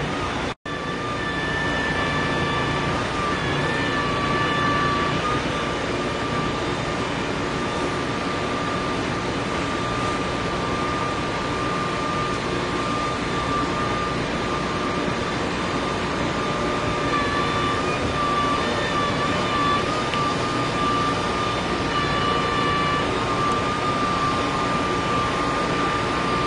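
Heavy trucks hauling concrete bridge girders, their diesel engines running as a steady loud noise with a high, slightly wavering whine.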